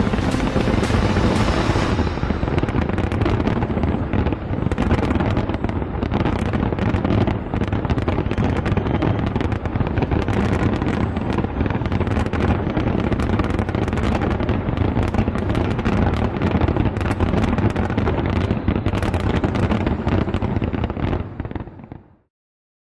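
Fireworks going off in a dense barrage: many rapid, overlapping bangs and crackles over a continuous din, cutting off abruptly near the end.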